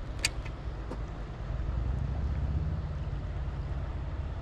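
Wind buffeting the microphone as a steady low rumble, with a sharp click about a quarter second in.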